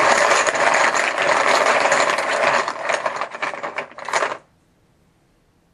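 A handful of team chips rattling and clattering as they are shaken and stirred in a container before one is drawn; the dense clicking stops suddenly about four seconds in.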